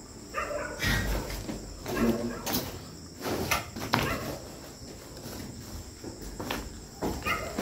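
Crickets chirping steadily, with a few sharp knocks and short bits of low, murmured speech.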